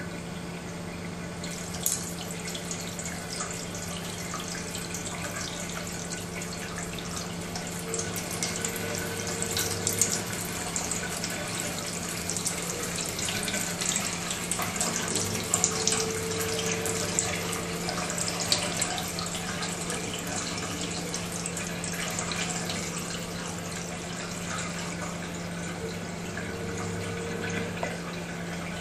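Water running from a kitchen tap and splashing into a stainless steel sink, growing louder about two seconds in as the flow is adjusted.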